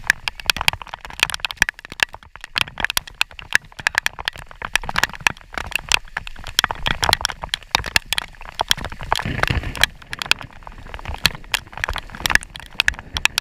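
Rain in a thunderstorm, with a dense, irregular patter of raindrops striking close to the microphone.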